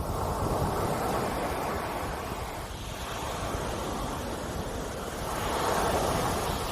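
Sea waves breaking and washing up a beach: two swells of surf a few seconds apart. Wind buffets the microphone throughout as a low rumble.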